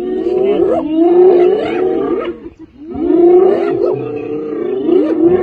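A pack of spotted hyenas calling over one another: many overlapping, fairly high cries that slide up and down in pitch, dropping away briefly about two and a half seconds in before rising again.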